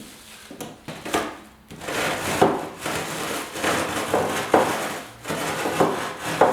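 Rolling pin crushing Biscoff cookies inside a plastic bag: the bag crinkles and the cookies crunch in repeated strokes, roughly once a second.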